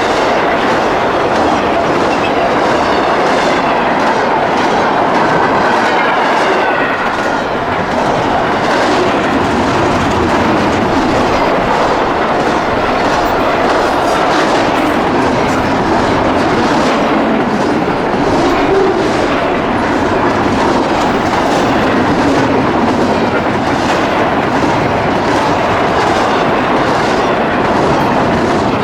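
Freight train cars rolling past, wheels clicking over rail joints in a steady rhythm under a continuous loud rumble.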